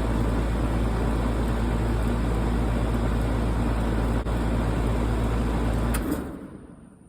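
2004 four-ton Goodman central air conditioner's outdoor unit running with a steady hum, then shutting down about six seconds in: the deep hum cuts off abruptly and the rest fades out over about a second as the fan spins down.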